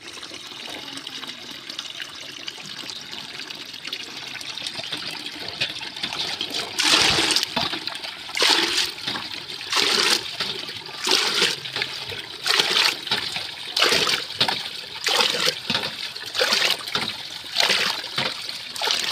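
A thin stream of water trickling steadily into a stainless steel basin. From about seven seconds in, a plastic dipper is plunged in and scooped out again and again, a splash about every second and a half.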